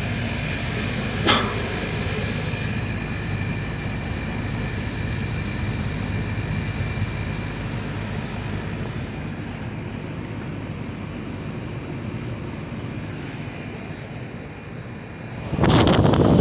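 Outdoor air-conditioner condenser units running in cooling mode: a steady hum of compressor and fan with a thin high tone over it, and a compressor that doesn't sound good. A single sharp click about a second in, and a loud rushing noise starts shortly before the end.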